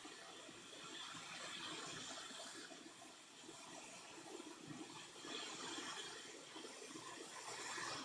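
Hot air rework station blowing on a circuit board: a faint, steady rush of air while a replacement chip is reflowed into place.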